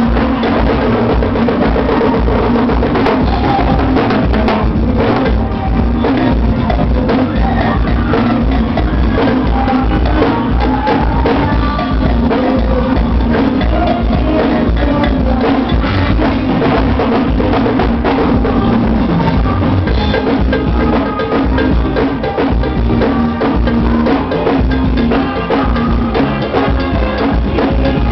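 Live forró band music played loud, with a steady drum-kit beat and heavy bass.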